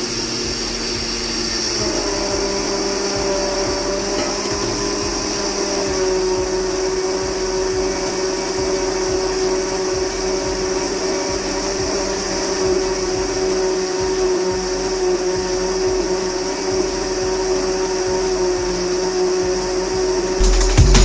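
Electric mixer grinder with a steel jar running steadily, grinding rice into flour. Its tone shifts about two seconds in, then holds.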